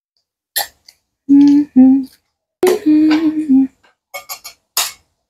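Eggs being cracked with a kitchen knife over a glass bowl: a sharp tap about half a second in and a quick run of taps near the end. In between, the loudest sound is a voice humming a few short, steady notes.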